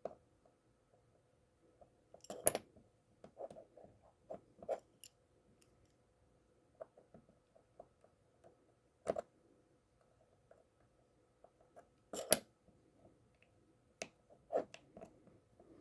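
Small sharp clicks and taps of eyeglass-repair work: tiny tools and a metal frame being handled at the bench. The loudest clicks come about 2.5 s, 9 s and 12 s in.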